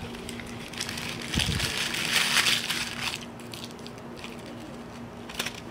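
Brown paper wrapper of a sushi burrito crinkling and rustling as it is handled, loudest about two seconds in and dying away after about three seconds.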